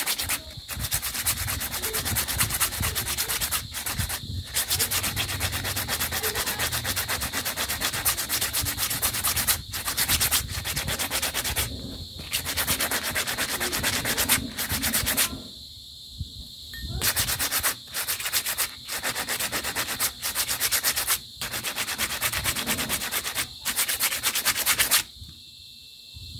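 A hand-held pad rubbed rapidly back and forth along twisted brass wire on a steel block, a dense scraping sound of sanding. It comes in spells of a few seconds with brief pauses and a longer pause about two-thirds of the way through, and stops shortly before the end.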